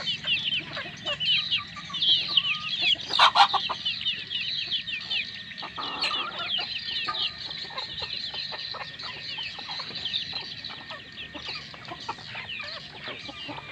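Brugo (junglefowl-cross) chickens clucking softly as they forage, over a constant chorus of short, falling high-pitched chirps, several a second. A single sharp, loud sound comes about three seconds in.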